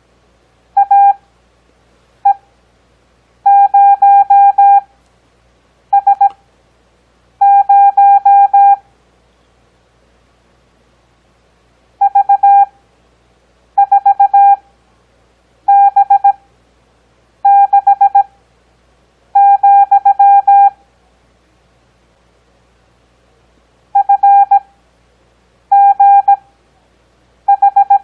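Morse code practice tone: a single steady beep keyed into dots and dashes at 17 words-per-minute character speed, with wide Farnsworth spacing of about one to two seconds between characters and longer gaps of about three seconds between some groups.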